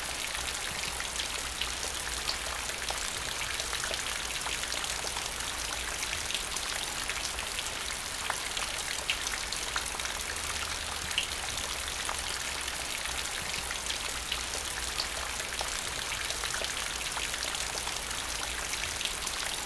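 Steady rain falling: an even hiss with distinct single drops striking here and there.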